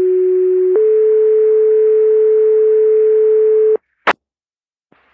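Two-tone sequential paging alert over a fire dispatch radio channel: a steady lower tone for about a second, then a slightly higher tone held for about three seconds that cuts off abruptly. These are the alert tones that set off the volunteer firefighters' pagers ahead of the voice dispatch. Two short clicks of radio squelch follow.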